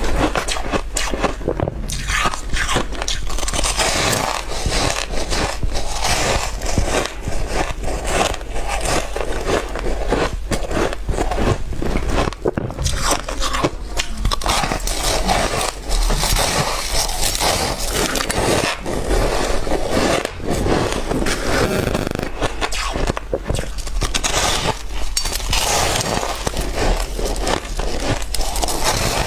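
Close-miked biting into dry, flaky white ice, a continuous run of crisp crunches and crackles.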